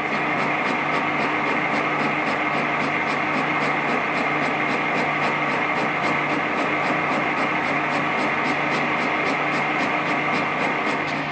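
Warco GH1440 metal lathe running under a long, slow cut into a model-locomotive crosshead held in a four-jaw chuck: a steady machine hum with a light tick repeating about three to four times a second.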